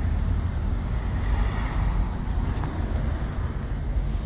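Road traffic going by, one vehicle swelling up and fading away about a second or two in, over a steady low rumble.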